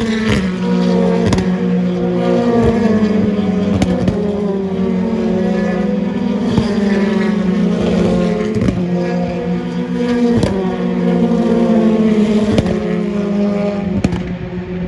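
Racing car engines running hard at full throttle on track, a steady pitched engine note with sharp cracks every couple of seconds.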